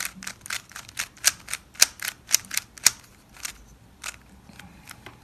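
3x3 Rubik's cube layers clicking as they are turned quickly over and over, about four sharp plastic clicks a second. After about three seconds the clicks thin out to a few softer ones.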